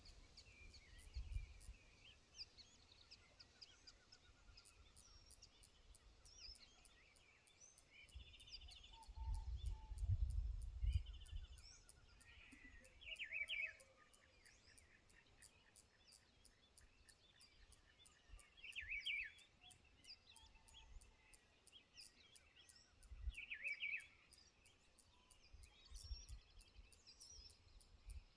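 Faint outdoor birdsong: scattered short chirps and three brief, louder chirping calls spread through the stretch, over a steady fast high ticking of about three ticks a second. Low rumbling swells, the loudest sound here, rise and fall a few times, the biggest about ten seconds in.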